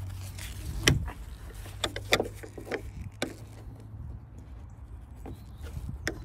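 Plastic clicks and knocks from a Volvo XC70 headlight unit being eased out of its mounting by hand, a few sharp ones spread through, over a steady low hum.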